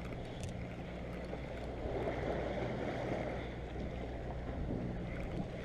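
Steady low hum of the fishing boat's engine running, under wind and the wash of the sea.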